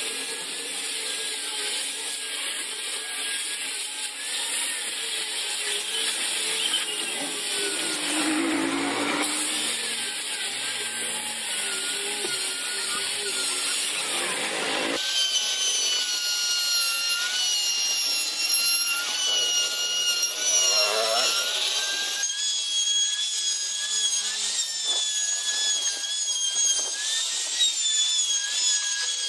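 Handheld electric router running and cutting into the wooden lattice frame: a steady high motor whine over the rasp of the bit in the wood, the pitch wavering slightly under load. The sound changes abruptly about halfway through and again a few seconds later.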